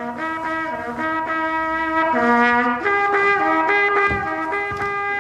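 A violin fitted with a built-in trumpet, blown like a brass instrument through a mouthpiece at the scroll, playing a slow tune of held, brassy notes that change pitch every half second or so.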